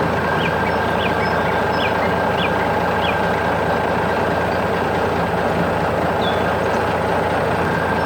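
Steady vehicle engine and traffic noise, with a few short high chirps in the first three seconds and one more about six seconds in.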